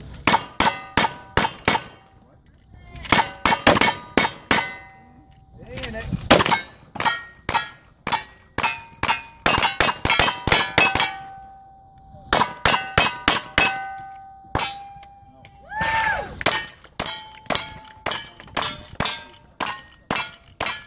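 Rapid strings of gunshots from two shooters firing rifles and revolvers at steel targets, each hit making the steel plates clang and ring on. The shots come in bursts of several a second with short pauses between strings as guns are changed.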